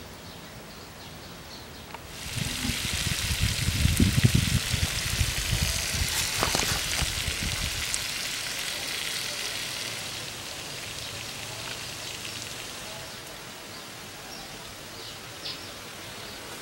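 Small rotating mini-sprinkler heads spraying water, a hissing spatter onto soil, leaves and grass. It starts suddenly about two seconds in and fades over the last few seconds, with a low rumble during its first half.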